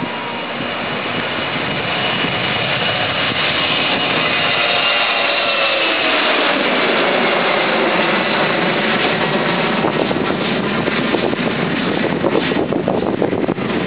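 Embraer E190 jet airliner's twin turbofan engines at takeoff power as it lifts off, passes overhead and climbs away. The sound grows louder over the first couple of seconds, and a whine slides down in pitch as the jet goes over.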